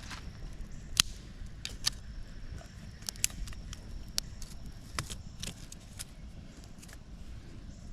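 Scattered sharp snaps and crackles from a small twig fire being built up with kindling, about a second apart, the loudest near the start and middle.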